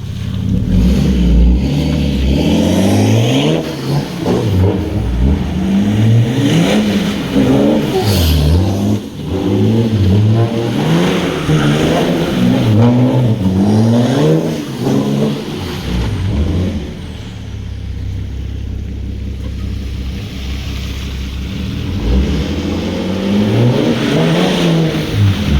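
BMW F10 530d's 3.0-litre straight-six turbodiesel through a custom exhaust, revved up and down again and again. After about fifteen seconds it settles to a steady, lower running for several seconds, then revs again near the end.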